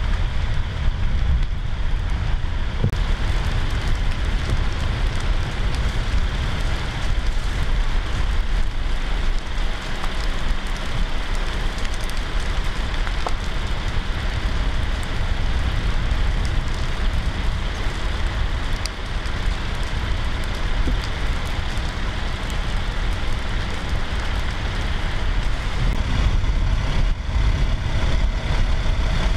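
Wildfire burning through forest timber and undergrowth: steady crackling with scattered pops over a low rumble. Near the end an engine running joins in.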